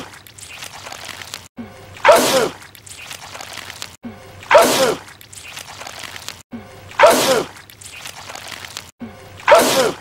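A man's sneeze, the same short sneeze looped four times about two and a half seconds apart.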